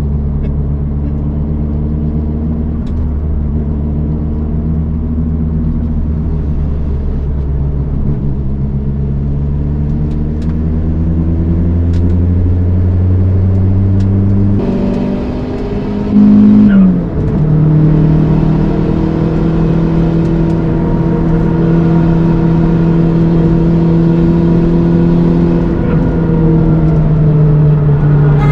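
Toyota Starlet Glanza V's turbocharged four-cylinder engine pulling hard, its note climbing slowly through a long stretch. About halfway through the note breaks, drops sharply with a brief loud burst, then settles into another steady, slowly rising pull.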